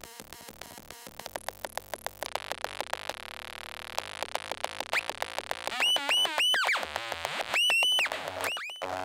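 The Peanut-1, a circuit-bent instrument built from two modified Yamaha PSS-30 toy keyboards, making harsh electronic noise. It opens with a fast run of clicks, turns to a hiss with a held tone about two seconds in, and from about five seconds in gives loud, high squealing chirps that glide up and down.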